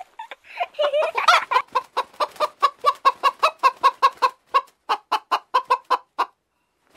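Hen clucking in a quick, even run of about five short clucks a second, stopping about a second before the end.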